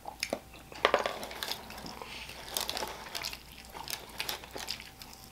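Eating sounds from a sticky, sauce-glazed Korean fried chicken wing being bitten, chewed and pulled apart by hand: scattered small wet clicks and smacks, a little stronger about a second in.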